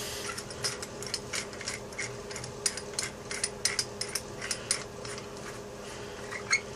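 Hand drill being cranked, its bit boring into wood with a quick, irregular run of small clicks and scraping.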